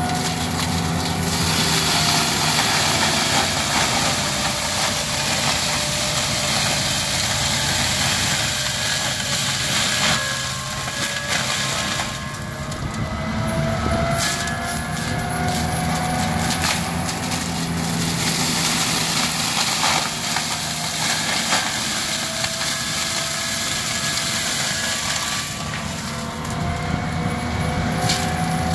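ASV RT-120 compact track loader running under load, its diesel engine and drum mulcher head grinding pine wood and brush into chips. A whine slowly rises and falls in pitch over a steady engine note, and the chipping noise swells and eases as the head bites in.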